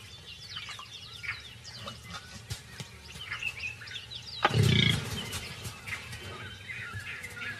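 Birds chirping throughout, with one loud, deep animal call lasting about half a second, some four and a half seconds in.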